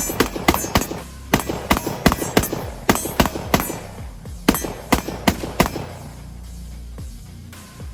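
Rapid semi-automatic gunshots from a Springfield Saint Victor AR pistol in 5.56 with a 9-inch barrel, fired in about four quick strings of several shots each that stop about five and a half seconds in. Background music with a steady beat plays underneath.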